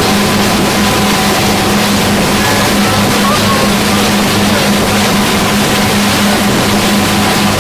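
Motorboat engine running steadily under way, a constant low drone, with water rushing and splashing against the hull and wind on the microphone.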